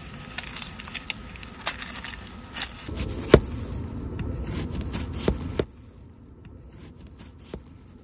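Plastic food packaging crinkling, then a kitchen knife slicing through a raw onion onto a plastic-wrapped plate: crisp crunching cuts with a sharp knock of the blade about three and a half seconds in. The sounds stop abruptly a little after five seconds, leaving quiet outdoor background with a few faint ticks.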